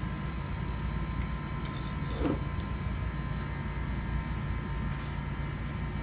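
A few light metallic clinks about two seconds in, as the stainless portafilter and filter baskets of an espresso machine are handled. A steady low hum runs underneath.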